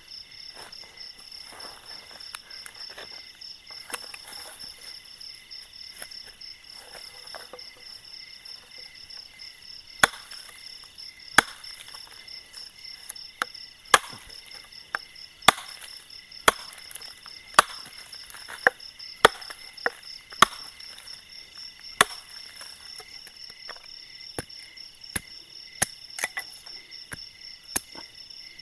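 Wood being chopped and split with a blade: loud, sharp chops start about ten seconds in and come irregularly, roughly once a second. Under them runs a steady, pulsing chorus of night insects chirping.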